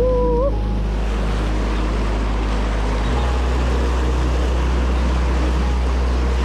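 Rushing whitewater of river rapids around a raft, with wind buffeting an action camera's microphone as a steady low rumble. A brief pitched sound, rising slightly, comes right at the start.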